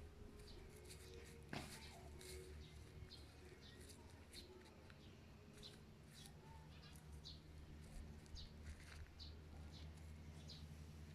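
Faint bird chirps, short and high, repeating about every half second, with a single sharp click about a second and a half in.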